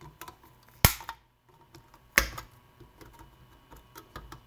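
Diagonal cutters snipping through the metal leads that join a battery pack's BMS board to its cells: two sharp snaps about a second and a half apart, with faint handling clicks between them.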